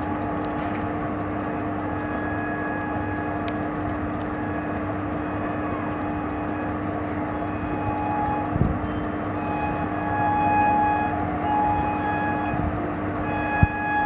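Approaching Indian Railways WAP-4 electric locomotive sounding its horn in long held blasts over a steady drone, getting louder in the second half as the train nears.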